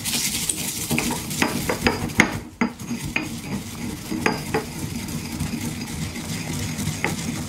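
Dry eggshells being crushed and ground with a pestle in a white stone mortar: a continuous gritty grinding, scattered with sharp crackles and clicks as the shell pieces break.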